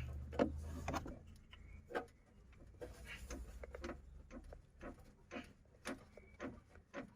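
Loose sheet-metal panel behind the front fender liner of an Isuzu Trooper, its two spot welds broken, squeaking faintly in short repeated creaks as it is worked by hand, about two a second. This is the squeak heard in the cabin over bumps.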